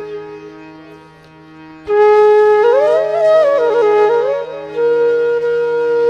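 Background flute music over a steady drone. A held note fades, a new note comes in sharply about two seconds in and winds through a short ornamented run, then settles on a long held note.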